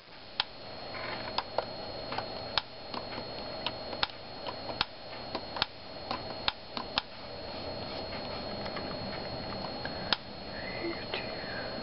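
Keys of a Panasonic Toughbook CF-47 laptop keyboard clicking at irregular intervals, over a steady high-pitched hiss from the camera.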